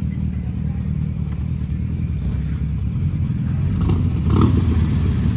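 Vehicle engine running steadily with a low rumble. It grows a little louder about four seconds in, where there is a brief clatter.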